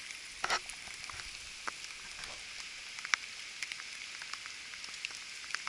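Rain falling: a steady high hiss with scattered sharp drip ticks.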